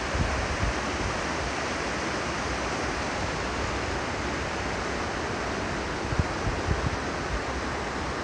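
Steady rush of a mountain creek, an even hiss with no rhythm, with a few brief low bumps of wind on the microphone about six to seven seconds in.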